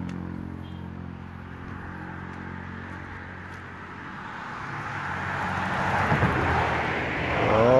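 A road vehicle approaching, its rushing tyre and engine noise swelling gradually from about halfway through to its loudest near the end, over a steady low hum.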